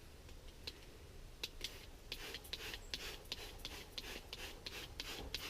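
Plain tap water being put onto bare cold-rolled steel, heard as a run of short, quick hissy strokes about three a second, starting about two seconds in.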